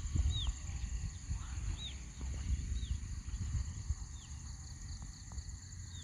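Wind buffeting the microphone in a low, gusty rumble. Over it a bird repeats a short arched chirp several times, a second or so apart, against a steady high drone of insects.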